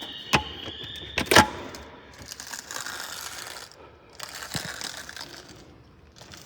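Store alarm sounding a high, slowly wavering tone that cuts off about a second in. Sharp mechanical clicks, the loudest sounds, come just before and as it stops, and are followed by rustling and scuffing.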